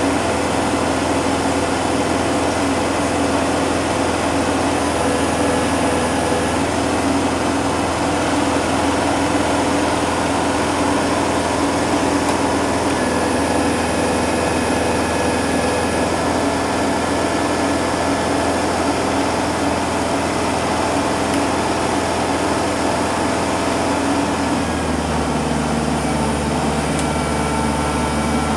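Kubota tractor's diesel engine running steadily under work. The engine note changes about 25 seconds in.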